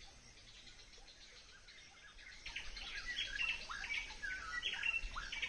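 Forest birds chirping and calling, many short high notes overlapping; they start about two seconds in and come thick and fast.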